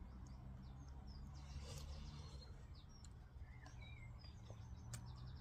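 Faint birdsong in woodland: scattered short chirps and whistles, then a quick trill just before the end, over a steady low rumble.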